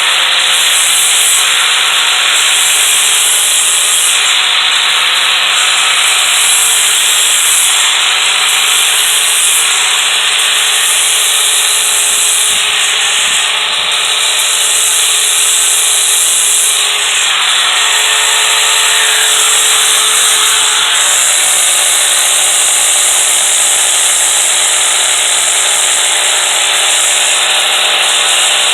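A power-driven sanding disc grinding against the rails of a steel Stihl chainsaw guide bar, a loud steady scraping hiss over a constant motor hum. It lightly dresses off the burrs, and the scraping eases and returns every few seconds as the disc is passed along the bar.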